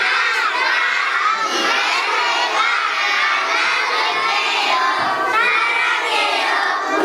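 Many young children shouting and cheering together, their voices overlapping in a steady din.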